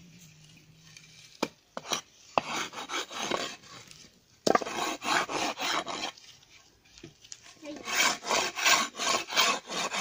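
A hand tool rasping and scraping a piece of wood in bursts of quick, repeated strokes, with a few knocks and one sharp knock about halfway through.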